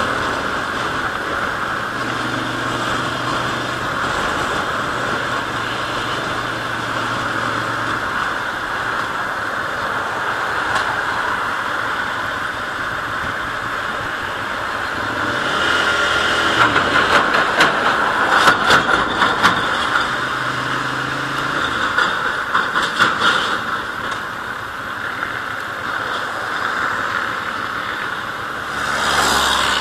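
Ducati Monster's V-twin engine running at highway speed, with steady wind and road noise over the microphone. The engine pitch shifts and the sound grows louder and choppier for several seconds around the middle.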